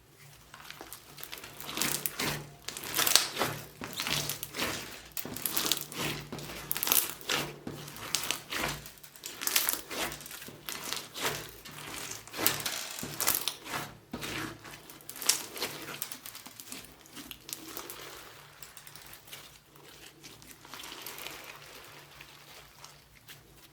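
Slime being squished and worked by hand, giving a dense, irregular run of wet crackles, pops and clicks that begins about a second in and eases off near the end.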